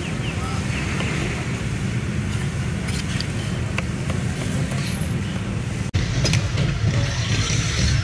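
Street food stall ambience: a steady low rumble with background voices and a few short clicks, broken by a brief dropout about six seconds in.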